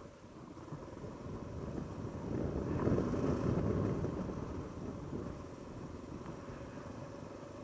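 Honda XR650L's single-cylinder four-stroke engine running as the bike is ridden, getting louder over the first few seconds as the throttle opens, then easing back to a steadier level.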